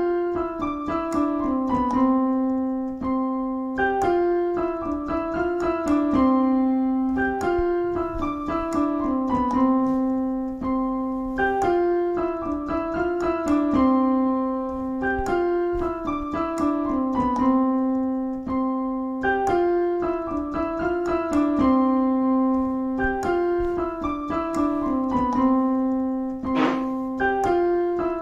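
Background piano music: a gentle melodic phrase of sustained, fading notes that repeats about every four seconds.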